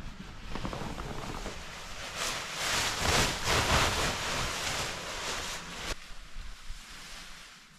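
Nylon tent fly sheet rustling as it is pulled out of a bike bag and shaken out, over wind buffeting the microphone. The noise builds to its loudest about three seconds in and drops away abruptly about six seconds in.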